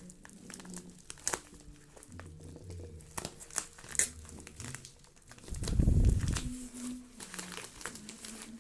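Packaging being handled and opened: crinkling and tearing with scattered sharp clicks, and a low thump about six seconds in.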